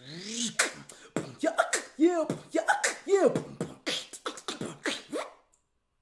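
Beatboxed vocal scratch: a voice imitating a DJ scratching a record, in quick rising-and-falling pitch sweeps mixed with sharp percussive mouth sounds. It cuts off suddenly near the end.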